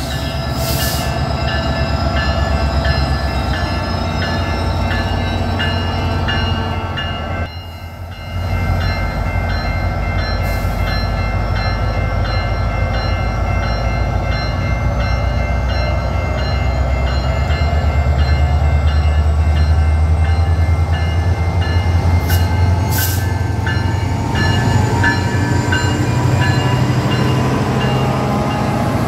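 A SunRail commuter train led by an MPI MP32PH-Q diesel locomotive, running with a steady low diesel rumble and a few sharp clicks. From about halfway through, a whine rises slowly in pitch as the train picks up speed.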